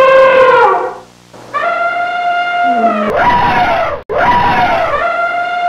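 Elephant trumpeting: long, loud, brassy calls that each hold a steady pitch and then slide down at the end, with a rougher, noisier blast about three seconds in that breaks off suddenly just after four seconds.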